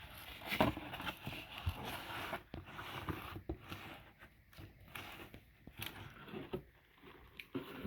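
Packaging being handled as a parcel is unwrapped: irregular rustling and scraping of paper and cardboard, with many small clicks.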